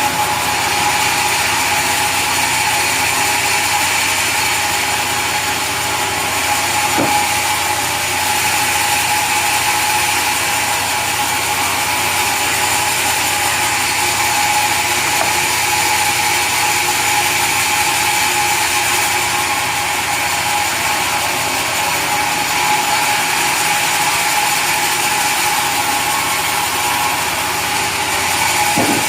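Sawmill saw running steadily: a constant whine over loud machine noise, with a faint tick about a quarter of the way through and another near the end.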